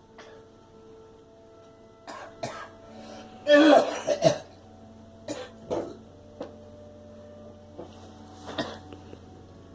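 A girl coughing: scattered short coughs, with a louder run of several coughs close together about three and a half seconds in.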